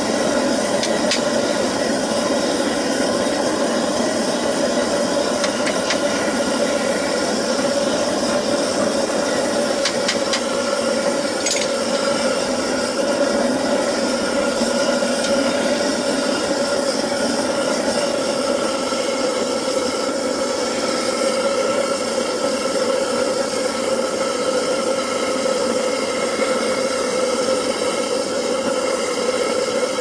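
Homemade waste-oil furnace burner, fed with air, propane and waste oil, running steadily: a loud, even rushing noise with a steady hum. A few light clicks sound over it, the clearest about ten to twelve seconds in.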